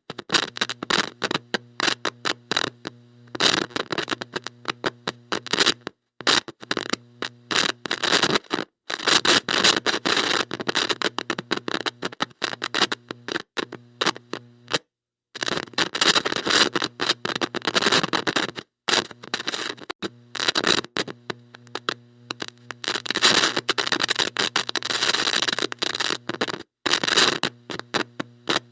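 Heavy electrical static from a bad connection: loud crackling hiss that cuts in and out irregularly, dropping to silence for moments, over a steady low buzzing hum.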